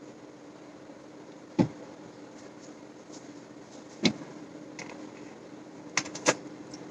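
Four sharp knocks from handling things on a table, one about a second and a half in, one about four seconds in and two close together near the end, over a faint steady hum.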